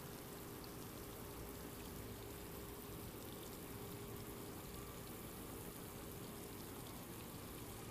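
Faint, steady rush of running water from a small pond waterfall, with a faint steady hum underneath that fades out about halfway through.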